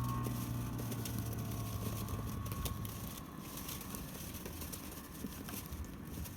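A boat's engine running steadily at low revs, its hum fading away over the first two or three seconds, over a constant hiss of wind and water with scattered small clicks.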